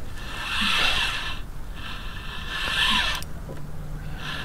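Spinning fishing reel being cranked to bring in a hooked fish: two spells of whirring, each about a second and a half, with a short pause between.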